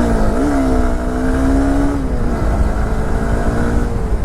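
Honda CB200X motorcycle engine pulling while riding, its pitch dipping and rising near the start, holding steady, then stepping down about two seconds in, over a constant low wind rumble on the helmet camera's microphone.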